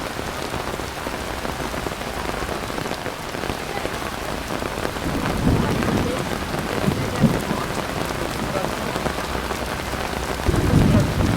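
Heavy rain pouring steadily, with low rumbles of thunder rolling in about halfway through and again near the end.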